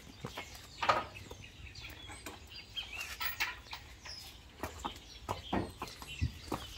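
A horse's hooves clop and knock irregularly on concrete and the wooden stall as it is led in by the halter, with a louder thump about a second in. Short bird calls sound in the background.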